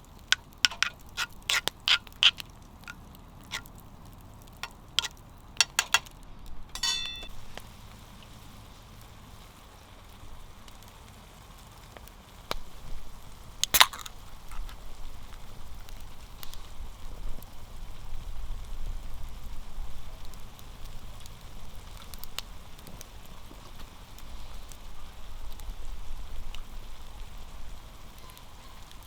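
Food frying in a pan, a steady sizzle that sets in about halfway through, after a run of sharp clicks and knocks in the first few seconds.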